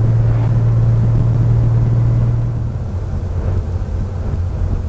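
Air-cooled flat-six of a 1983 Porsche 911SC heard from inside the cabin, pulling steadily in fourth gear with a low drone; about two and a half seconds in the note drops slightly in pitch and level as the throttle eases off. No grinding or gear noise comes from the freshly rebuilt 915 gearbox.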